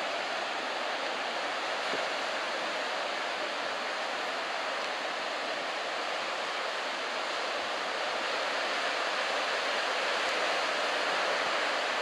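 Steady rushing roar of breaking surf, swelling slightly a little past the middle.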